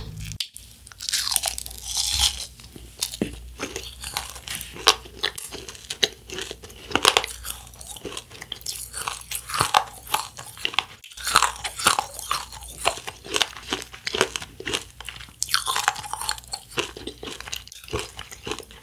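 A person chewing UFO candy, a crisp wafer disc topped with candy sprinkles: a long run of many quick, irregular crunches.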